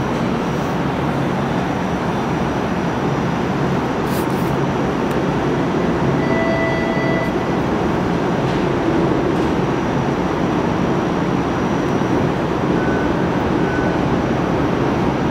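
A Bombardier Flexity Outlook streetcar at an underground station platform, its running equipment giving a steady low hum and rumble, with a couple of brief faint tones partway through.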